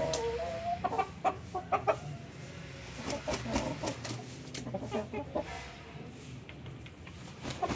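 Rooster clucking, with a short flurry of wing flaps around the middle.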